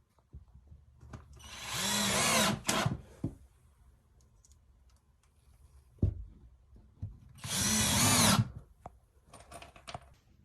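Power drill running in two bursts of about a second each, spinning up at the start of each, with a sharp knock between them and a few shorter, fainter runs near the end.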